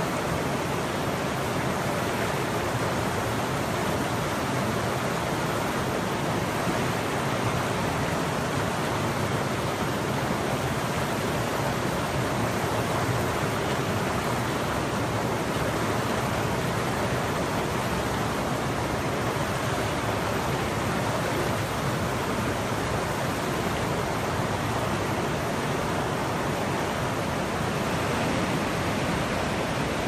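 River water rushing over a low rock ledge into a pool, a steady, even rush with no breaks.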